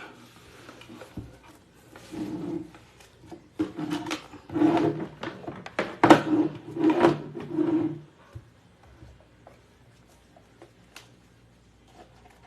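Stack of paper shipping labels being handled and slid into place behind a label printer: a run of rustling, scraping bursts from about two seconds in to about eight seconds in, then a few faint clicks.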